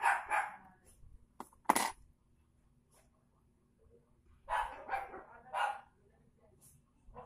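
A dog barking in short bursts: a couple of barks at the start, a sharp one about two seconds in, and three in quick succession past the middle.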